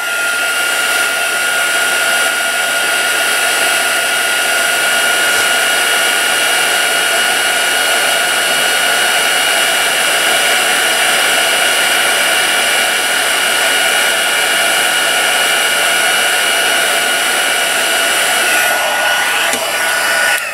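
Embossing heat tool running steadily: a loud blowing rush with a steady high whine from its fan motor, melting embossing powder on a stamped paper sentiment. It cuts off at the very end.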